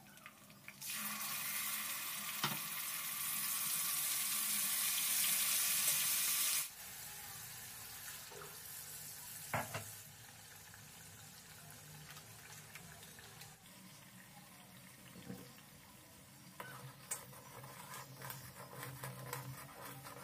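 Water pouring for about six seconds, then stopping suddenly; a quieter hiss follows, with a few clinks.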